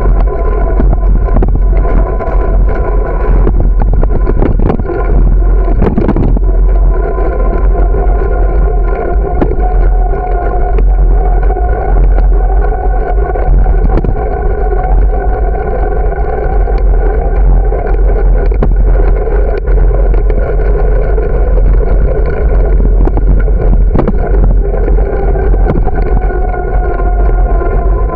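Bicycle riding along an asphalt path: a heavy rumble of wind and road vibration on the microphone, with a steady whine that rises and falls slightly with speed. A few knocks come as the wheels hit cracks and bumps.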